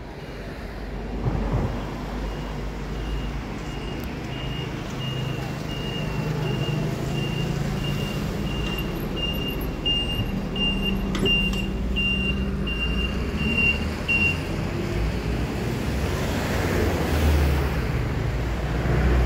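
Low rumble of road traffic and engines, with a high electronic beep repeating about once every three-quarters of a second for some twelve seconds. A broad rushing noise swells near the end.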